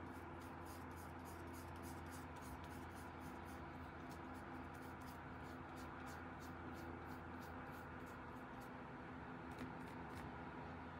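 Paintbrush scratching gouache onto paper in quick back-and-forth strokes, about three or four a second, with a brief pause near the end; a faint low hum underneath.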